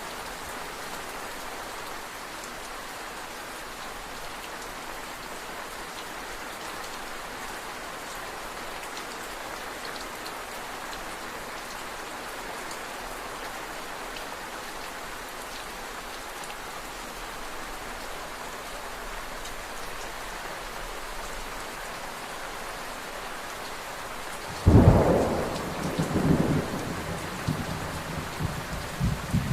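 Steady rainfall with a thunderstorm: near the end, a sudden loud crack of thunder, followed by several rolling rumbles.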